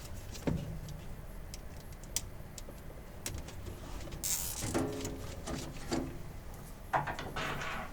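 Handling noises as wiring is fastened with a plastic zip tie: scattered light clicks and rattles, with a brief rasp about four seconds in and a sharper click near the end.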